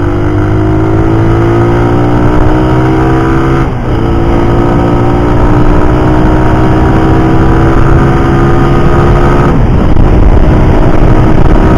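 A Suzuki Raider 150's single-cylinder engine accelerating hard under full throttle, its note climbing steadily. It breaks off briefly for an upshift about four seconds in and again about nine and a half seconds in, each time climbing again more slowly. The engine is still in its break-in period. Heavy wind rushes over the microphone throughout.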